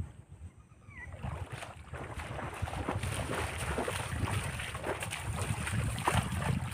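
Water splashing in the shallows around a wading angler's legs, building from about a second in and keeping up in quick, irregular splashes, over a low rumble of wind on the microphone.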